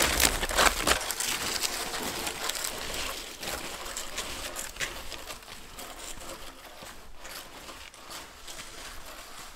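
Footsteps crunching through deep snow in snowshoes, close at first and then growing fainter and sparser as the walker moves away.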